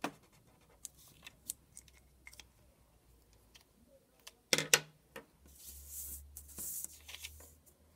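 Pens being handled on paper: light scratches and taps of a highlighter, then a sharp cluster of clicks as the pens are handled about halfway through. Near the end, sheets of paper slide and rustle across the desk.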